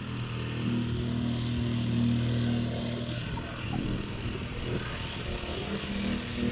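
Small petrol engine of a vibrating plate compactor running steadily.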